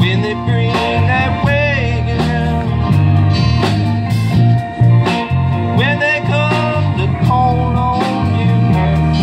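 Live band playing: acoustic and electric guitars, bass and keyboard, with a lead line of bending, sliding notes over a steady beat.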